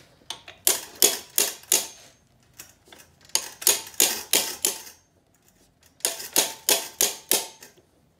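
Claw hammer tapping a socket wrench handle to break loose an outboard motor's flywheel nut: three runs of quick, sharp metallic strikes, about three a second, with short pauses between them.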